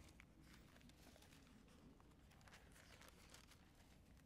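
Near silence: room tone with faint scattered rustles and ticks of Bible pages being turned.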